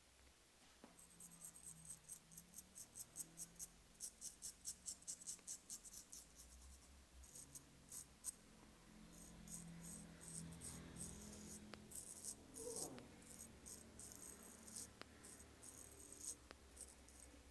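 Straight razor scraping through lathered stubble in short, quick strokes, about three a second at first, then more irregular.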